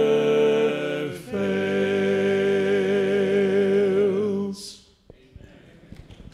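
Male vocal quartet singing unaccompanied, holding the long final chords of a hymn with vibrato. The singing stops about four and a half seconds in.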